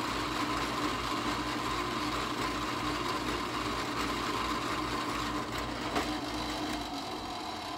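Milling spindle of a 1998 Shoptask XMTC Gold lathe-mill combo running steadily, with a low hum and a steady whine, as its cutter bores into the top of a bronze casting. A single click comes about six seconds in, as the spindle is lifted clear and the sound drops slightly.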